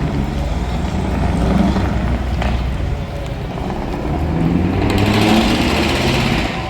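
Truck V8 engine with open exhaust pipes revved hard twice. The second rev climbs higher and is longer and louder than the first.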